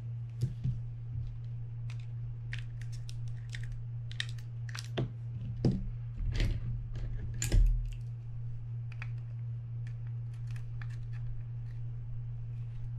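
Scattered small clicks and taps of a screwdriver and small metal parts being handled as a Penn Spinfisher 550SSG spinning reel is taken apart by hand, over a steady low hum.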